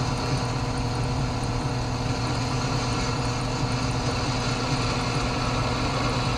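Central Machinery benchtop drill press running steadily, its bit drilling a hole through a metal washer.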